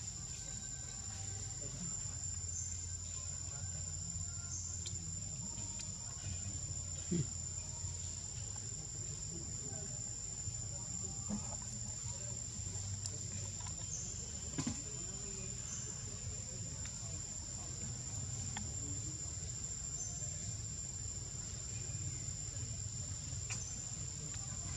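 Steady high-pitched insect drone, one continuous tone with no breaks, over a low background hum and a few faint clicks.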